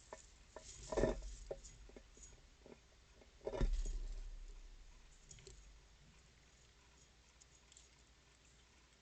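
Squirrels on a bird feeder make scattered light clicks and taps, with two louder dull knocks about two and a half seconds apart. The second knock trails off with a low rumble.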